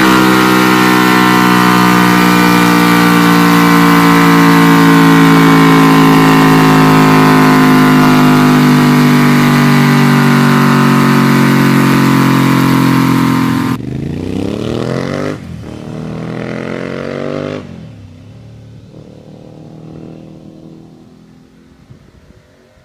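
Cagiva Raptor 1000's V-twin engine running hard at high revs under load on a roller dyno. About fourteen seconds in the throttle is shut suddenly and the revs fall away, with one more brief blip and drop, leaving a faint engine sound.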